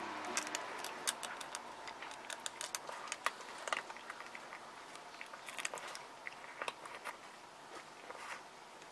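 Cat eating from a stainless steel bowl: faint, irregular crunching and clicking as it chews its food, several small clicks a second.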